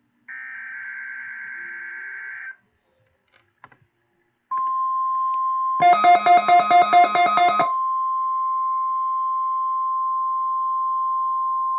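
Warbling digital data tones of a NOAA Weather Radio SAME header burst for about two seconds. After a short gap, the steady 1050 Hz weather radio warning alarm tone starts about four and a half seconds in and holds, marking the start of a required weekly test. Near the middle a rapid pulsing beep, about five a second, sounds over the tone for about two seconds.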